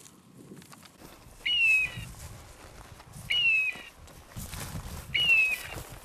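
A hunting dog's electronic beeper collar sounding a short, high, even beep three times, about every two seconds, with a low rustle of dry grass between the beeps.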